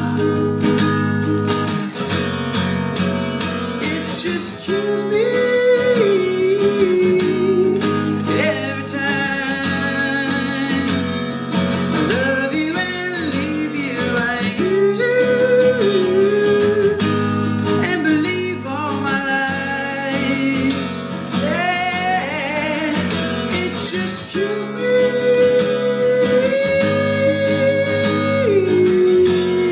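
A man singing while strumming an acoustic guitar, holding a long sung note near the end.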